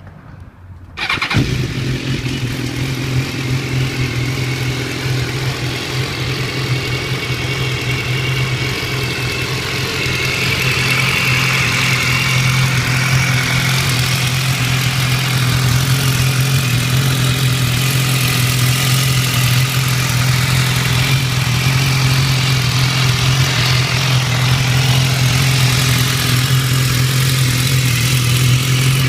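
2014 BMW S1000R's inline-four engine starting about a second in, then idling steadily with a ticking noise, on a nearly new engine of 1600 km.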